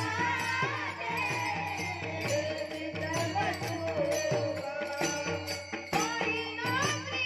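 Warkari devotional bhajan: boys singing a gliding melody, with small brass hand cymbals (taal) struck in a steady beat over a sustained low drone.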